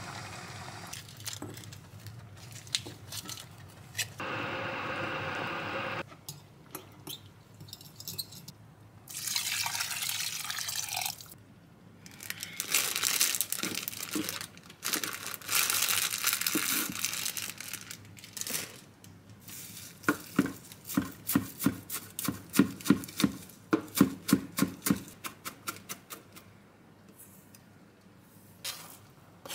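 Kitchen knife chopping fresh parsley on a plastic cutting board, a run of quick strikes at about three a second for several seconds in the second half. Before it, rustling and handling noises as the parsley is taken out of its bag and laid on the board.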